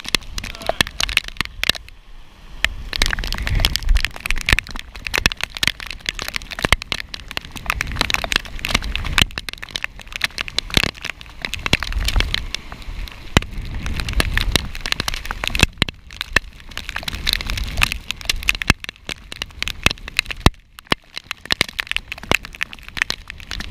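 Rain pattering and crackling as dense sharp ticks on a wearable camera's housing, with gusts of wind buffeting the microphone as low rumbles every few seconds.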